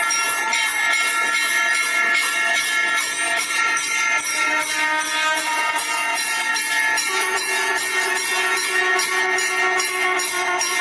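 Temple bells rung rapidly and continuously, many metallic strikes overlapping into a dense, shimmering ring. A steady lower tone joins about seven seconds in.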